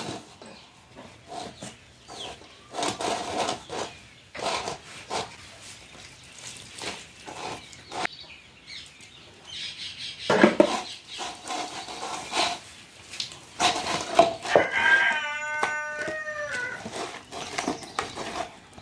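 Scattered knocks and clicks of handling, then near the end a rooster crows once, one drawn-out call of about two seconds.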